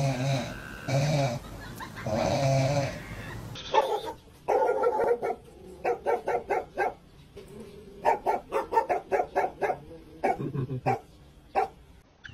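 A sleeping dog snoring, a long pitched breath about once a second. After a cut, another dog barks in quick runs of short, sharp barks, several a second.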